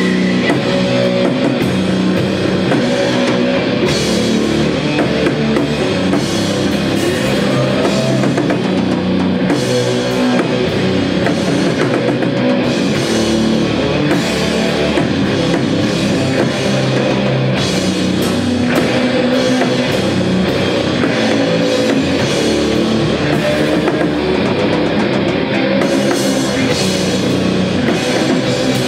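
Live rock band playing loud heavy rock: drum kit and guitars together, dense and continuous.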